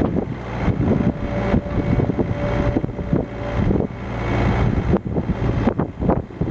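Yanmar mini excavator's diesel engine running, with irregular clanking and rattling from the quick coupler on the arm. A steady whine joins in about a second in and stops after nearly three seconds.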